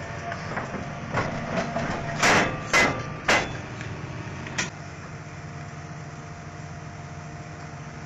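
Hydraulic excavator engine running steadily while its steel bucket knocks and scrapes against marble in a narrow cut. A burst of loud strikes comes between about one and three and a half seconds in, with one more about four and a half seconds in.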